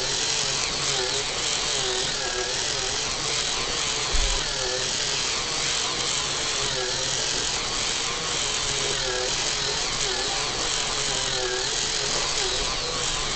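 K'nex toy car's small motor and plastic gears whirring steadily, the pitch wavering up and down as it runs. A short low thump about four seconds in.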